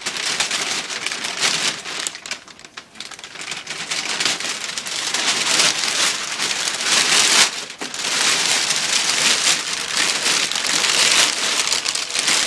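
Heavy-duty plastic bag crinkling and rustling loudly as it is pulled and worked down off a printer, with a brief lull about two seconds in.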